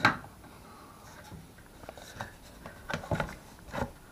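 Plastic radio case being handled and pressed together: a sharp click at the start, then a few scattered clicks and knocks of plastic parts.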